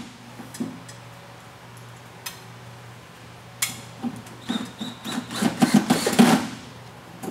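A few light clicks, then a cordless drill runs in short, choppy bursts for about two seconds, driving a self-drilling screw up into the underside of a rolling shutter's aluminium hood cover.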